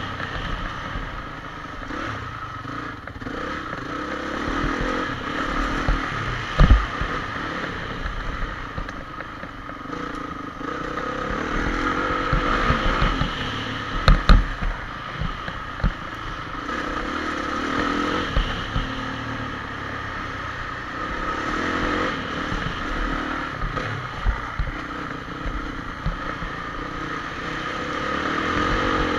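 Honda CRF450 single-cylinder four-stroke motocross engine running hard, revving up and easing off in turn as the bike rides the dirt track, heard close from an onboard camera. A few sharp knocks cut through, the loudest about seven and fourteen seconds in.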